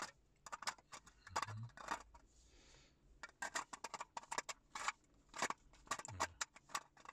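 Hard plastic clicking and ticking, with a short scraping rub about two and a half seconds in, as the clear plastic insect-collection tray of a UV bug zapper is fingered and twisted.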